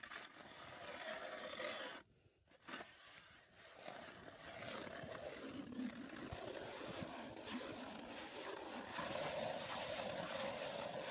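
Hand ice auger boring down through snow and lake ice, its spiral blades giving a steady grinding scrape. It breaks off briefly about two seconds in and grows louder near the end.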